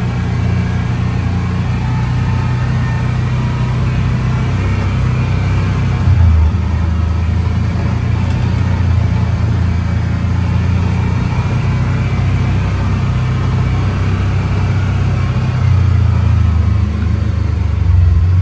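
Kawasaki Mule side-by-side's engine running with a steady low drone as the vehicle drives along. It swells briefly about six seconds in and again for a couple of seconds near the end.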